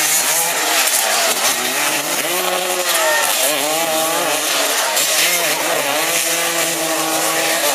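Several small racing engines running together, their pitch rising and falling as they rev up and down and pass by.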